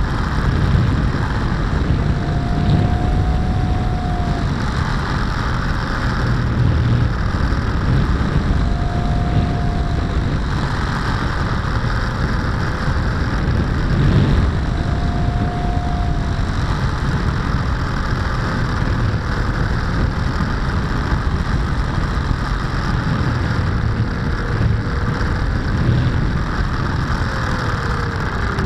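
Radio-controlled SR22 trainer plane in flight, heard from its onboard camera: steady wind rush over the microphone with the motor and propeller droning underneath. The drone's pitch drifts up and down a few times.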